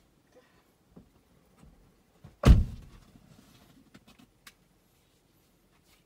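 A car door shutting, heard from inside the car: one heavy thump about two and a half seconds in, followed by a few small clicks.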